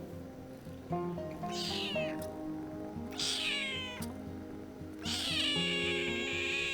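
A cat meowing three times, the last meow the longest, over background music.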